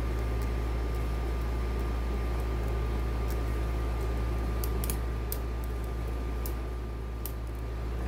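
Faint, light metallic clicks of a hook pick working the spool pins of a pin-tumbler lock under tension, scattered and thickest in the second half, over a steady low hum and a faint steady whine.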